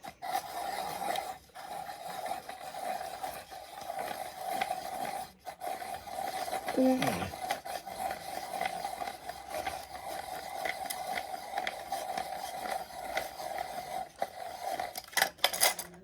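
Electric pencil sharpener running with a steady motor whine while its cutter grinds down a pencil in a gritty rasp, with brief breaks twice.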